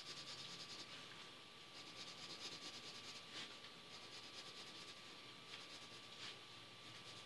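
Faint scratching of a graphite pencil on drawing paper as a portrait is shaded in short, quick strokes, with a couple of slightly firmer strokes.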